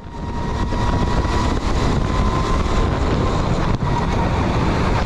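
Go-kart running on track, heard from an onboard microphone: a steady low rumble of engine and wind noise with a faint steady whine, fading in at the start.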